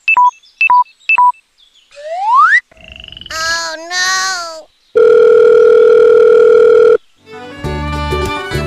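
A string of cartoon sound effects: three quick chirps, a rising whistle and two squeaky voice-like calls, then a loud steady electronic tone lasting about two seconds, like a telephone tone. Music with a beat comes in near the end.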